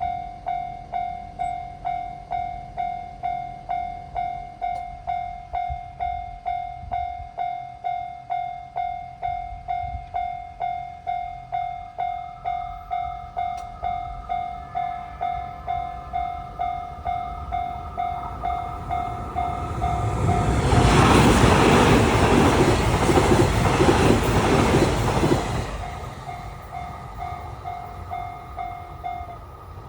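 Japanese level-crossing warning bell ringing steadily, about two strokes a second. About 18 seconds in, a JR Kyushu 885 series electric train passes, its loud rushing noise drowning the bell for several seconds. The bell rings on for a few seconds after the train and stops shortly before the end.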